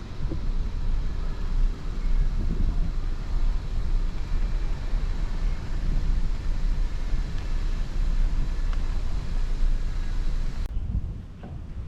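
Steady low rumble of outdoor background noise that drops away abruptly about a second before the end.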